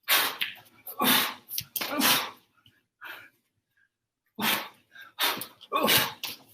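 A person's short, forceful exhalations in a run of about eight, each under half a second and a second or less apart, as with strikes or kicks being thrown.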